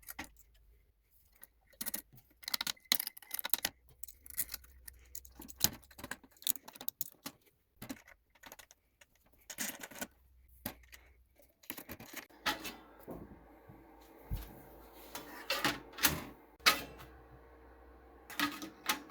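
Irregular metallic clicks and rattles from a 3D printer being handled and adjusted, its parts knocking and jangling. About twelve seconds in, a steady mechanical hum with a held tone joins the clicks.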